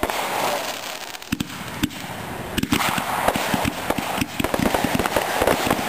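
Consumer aerial fireworks going off: a few separate bangs in the first three seconds, then a rapid, dense run of pops and crackles.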